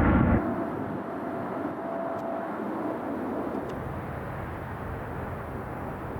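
Jet airliner engine noise at a distance, a steady rushing haze. A louder low rumble cuts off abruptly about half a second in.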